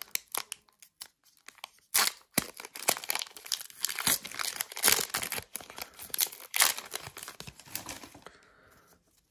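Crinkly foil wrapper of a Pokémon trading card booster pack being torn open by hand, crackling in a run of sharp bursts that dies down about eight seconds in.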